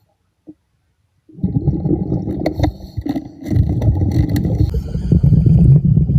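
Muffled underwater rumbling and scraping that starts about a second and a half in, after a near-silent gap, with scattered sharp clicks.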